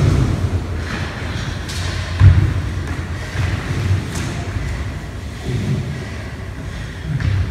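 A dancer's body and feet thudding on a studio dance floor, with a heavy thud about two seconds in and softer ones after.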